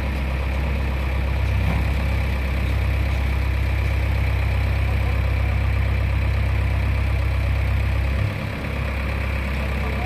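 JCB 3DX backhoe loader's diesel engine running steadily under load as the backhoe arm lifts palm trees off a truck. The engine note dips briefly about eight seconds in.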